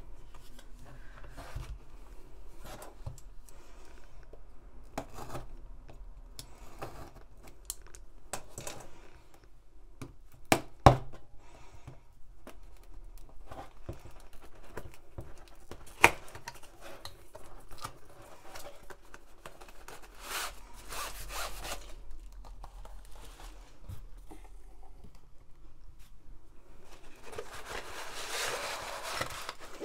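Cardboard kit box handled and slid about on a wooden tabletop, with rubbing and scraping as the inner box is pulled out and a couple of sharp knocks around the middle. Near the end there is a burst of crinkling rustle as a rolled canvas with a plastic cover film is unrolled.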